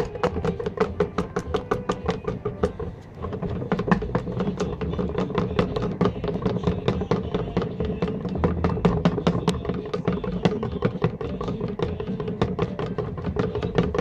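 A stick stirring two-component polyurethane foam in a clear plastic tub, tapping and scraping against the tub wall in a fast, even rhythm with a short pause about three seconds in, as the two components are mixed. Music plays in the background.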